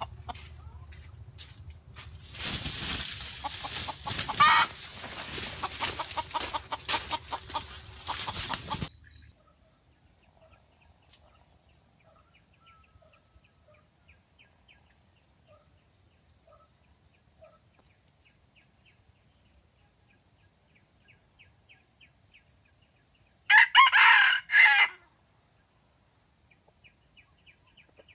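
Red junglefowl: for the first nine seconds, loud scuffling and wing-flapping in dry leaves. Then a rooster gives one short, clipped crow about twenty-three seconds in, over faint, rapid chirping.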